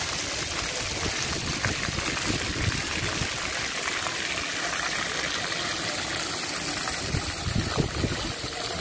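Steady rush of running, splashing water.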